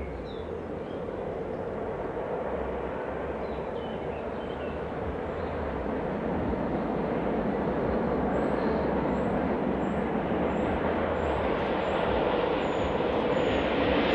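Passenger train hauled by a Swiss Re 4/4 electric locomotive crossing a viaduct, a steady rumble of wheels and cars that grows louder as it approaches. A few faint bird chirps sound in the first seconds, and a run of short, high chirps about twice a second starts about eight seconds in.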